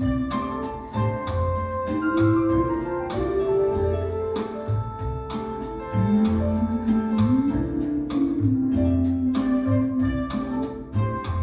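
Instrumental passage of a jazz-pop song with no singing: a bass line sliding between notes over a steady beat of kick drum and cymbals, with sustained chords above.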